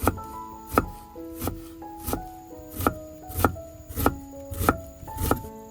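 A knife chopping food on a cutting board in a steady rhythm, about nine strokes at roughly one and a half a second, over background piano music.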